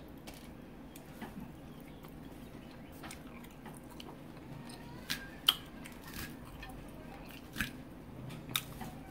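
Close-miked chewing and mouth sounds of a person eating, with a few sharp clicks, the loudest about five and a half seconds in.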